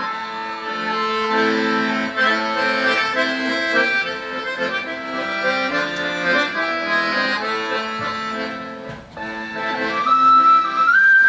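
Garmon (Russian button accordion) playing a lively chordal folk passage. Near the end the svirel pipe's high melody comes back in over it.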